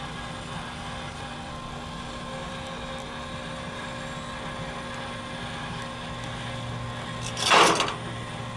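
Blackstone propane pizza oven running: a steady hum from its burner and the motor turning the stone. About three-quarters of the way through, a brief loud rush of noise lasts about half a second.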